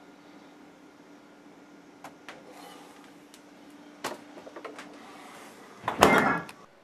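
Refrigerator door swung shut with a heavy thud about six seconds in, after a few light clicks and knocks; a faint low hum runs underneath until just before the door closes.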